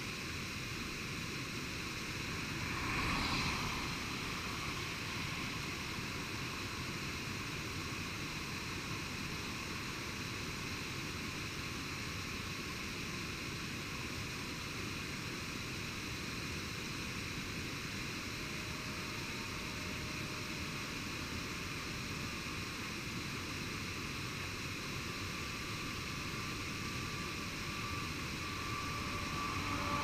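Steady rushing of a small waterfall pouring down a rock face, running high after heavy autumn rains. A passing vehicle swells briefly about three seconds in, and near the end another approaches, its pitch falling as it passes.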